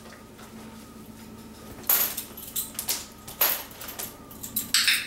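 A dog leash's metal clip clinking and clattering on a tile floor as a dog mouths it and tries to pick it up: a few sharp clinks about two seconds in, about three and a half seconds in and near the end, with lighter ticks between.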